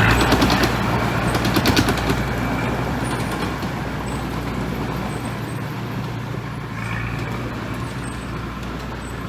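Heavy diesel construction machine running steadily, with a rapid clatter in the first two seconds. The engine sound slowly grows quieter.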